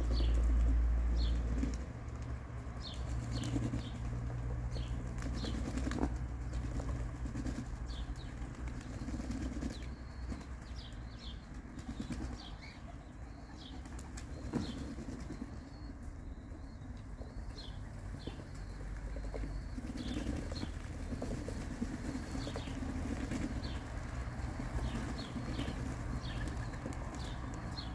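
A flock of young racing pigeons flapping their wings as birds flutter up and land around the loft, with soft cooing. Short high chirps repeat throughout, and a low rumble fills the first two seconds.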